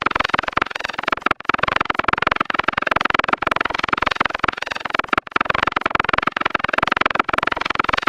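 Autovocoded sound effect: a sound turned into a pitched, synthesized buzz, with gliding tones over a rapid pulsing texture. It repeats as a loop about every two seconds, with a brief drop-out at each repeat.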